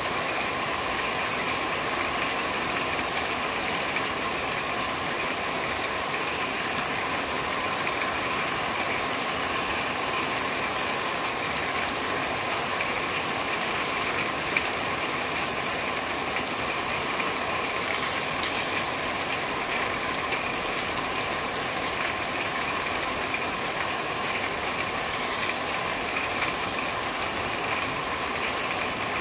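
Steady rain drumming on a corrugated metal roof: a dense, even patter of fine ticks that neither rises nor falls.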